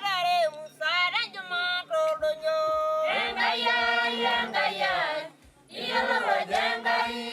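Women singing. A single voice glides between notes at first, and a fuller group of voices joins about three seconds in.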